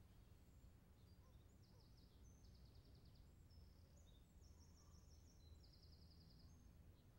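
Near silence: a low steady room hum with faint small birds chirping and giving short rapid trills, mostly between about one and six seconds in.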